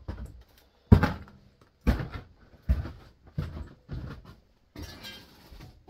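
Welder laying short bursts of weld around the inside of a steel bearing race stuck in a Vespa Rally 180 crankcase, about one sharp crackling burst a second, with a longer run near the end. The weld is meant to shrink the race so it drops out of the case.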